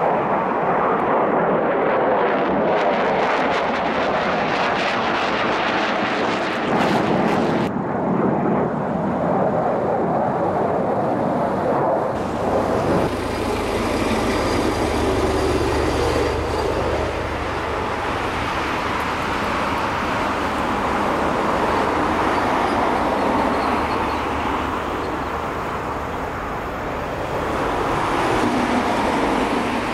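Mitsubishi F-2 fighter jet engine noise: a steady, loud jet roar. About twelve seconds in it changes abruptly to a deeper rumble.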